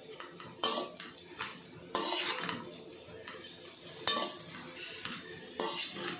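A perforated stainless-steel ladle scrapes and clatters against a steel pan while tossing seasoned rice noodles. There are four loud scrapes, roughly one every one and a half seconds, some with a short metallic ring.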